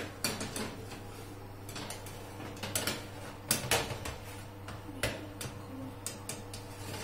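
Metal baking tray sliding onto a wire oven rack, clicking and clanking irregularly against it as it is pushed in and adjusted, over a steady low hum.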